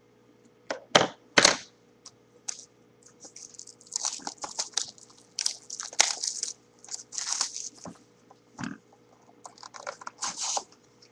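A few sharp knocks from handling a cardboard trading-card hobby box, then the crackly crinkling of foil card packs being handled and pulled out of the box.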